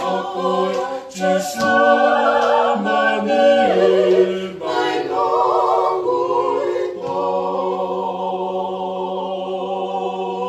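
A group of voices singing unaccompanied in harmony, settling into a long held final chord for the last few seconds.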